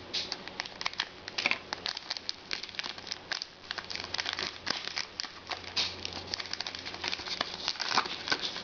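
Wrapper of a 2011-12 Panini Rookie Anthology hockey card pack being torn open and crinkled, with a steady run of irregular crackles.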